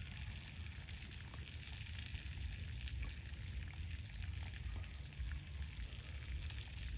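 Steady sizzling of food frying in hot oil, with faint scattered crackles and a low rumble underneath.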